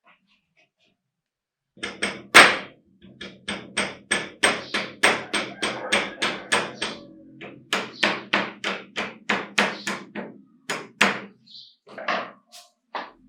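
Repeated hammer strikes, about two to three a second, each a sharp tap with a faint ringing note. The strikes begin about two seconds in and the third is the loudest.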